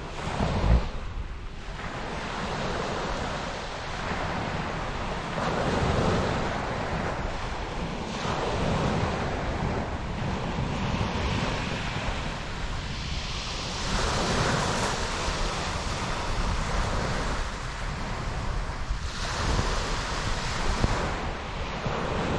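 Small sea waves breaking and washing up a shingle beach, swelling every few seconds. Wind buffets the microphone, with a brief low thump about a second in.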